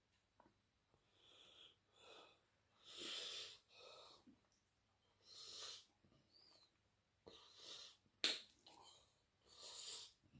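A person's short, breathy hissing breaths, about eight of them, one every second or so, typical of an eater sucking air against the heat of spicy chicken curry. A single sharp click comes about eight seconds in.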